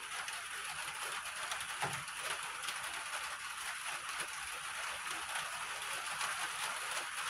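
Steady rain pattering on the greenhouse, an even hiss made of many fine drops.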